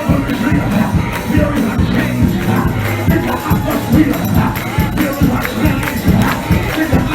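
Lively church praise music from a band, with a steady drum beat and a moving bass line under the congregation's voices.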